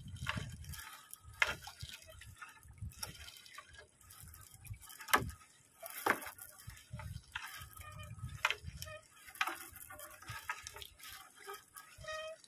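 Seawater dripping and splashing, with scattered sharp knocks, as a fishing net is pulled by hand into a small boat.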